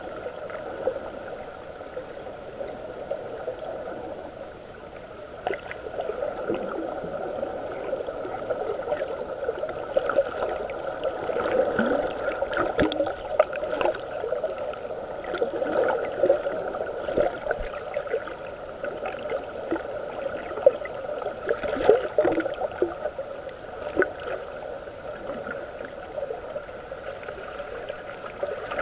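Underwater sea ambience heard through a GoPro's waterproof housing: a muffled, steady wash of moving water with scattered clicks and crackles, growing a little louder about five seconds in.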